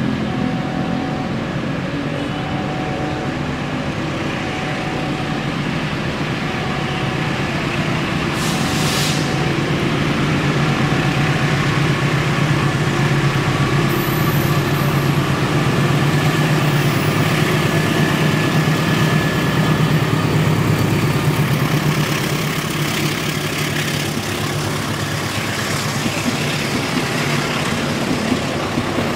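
CC206 diesel-electric locomotive's engine running as it approaches hauling passenger coaches, a steady low drone that grows louder past the middle, with a brief hiss about nine seconds in. Near the end the coaches roll past with wheels clattering over the rail joints.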